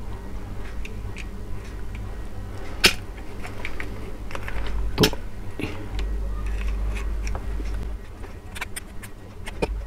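Light clicks and taps of the plastic battery housing of a toy jumping dog being handled and worked with tweezers, with two sharper clicks about two seconds apart standing out. A steady low hum runs underneath.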